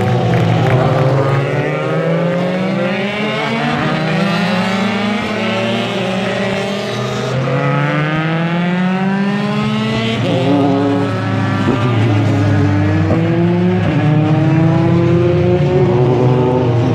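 Several Formula 3-type single-seater race cars passing one after another through a chicane: each engine note drops as the car brakes and downshifts, then climbs in steep rising sweeps through the gears as it accelerates away, with the notes of different cars overlapping.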